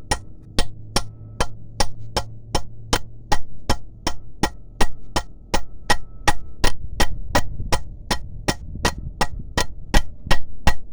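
Hammer striking an old pre-cup set on top of a new one, driving a precombustion chamber down into a 6.2 diesel cylinder head: steady, evenly spaced metal blows, about two and a half a second.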